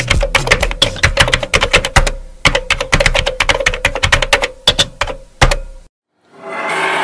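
A rapid, irregular run of sharp clicks over a steady tone and low hum, part of the dance mix played over the stage speakers; it cuts off abruptly about six seconds in, and a held chord fades in near the end.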